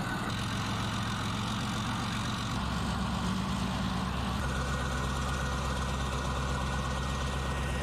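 Heavy military vehicle's engine running steadily at idle, its note shifting slightly a couple of times.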